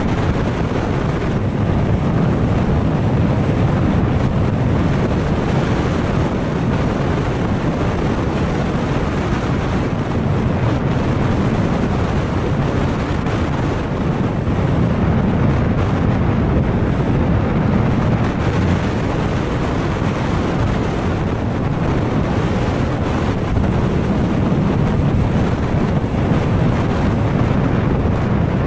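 Steady wind rumble on the microphone from riding a motor scooter at about 60 km/h, with the scooter's road and running noise mixed in.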